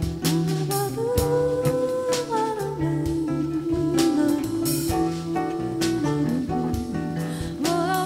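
Live band playing a jazz-tinged song: a long held melody line that slides between notes, over a low bass line, acoustic guitar and drum kit hits.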